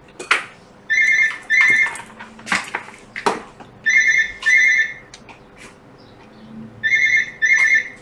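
An electronic telephone ringer sounding in a double-ring pattern: two short trilling rings, then a pause, the pair repeating about every three seconds, three times. Faint clicks of a phone being handled fall between the rings.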